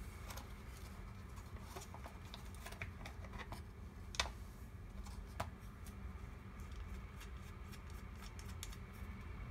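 Small plastic clicks and scrapes from handling a dash cam's suction-cup windshield mount, with a sharper click about four seconds in and another a second later. A steady low hum runs underneath.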